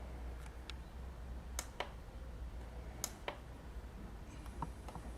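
Push buttons on a bird scarer's electronic timer being pressed, about four presses, each a light click followed by a second click a fraction of a second later, over a faint steady hum.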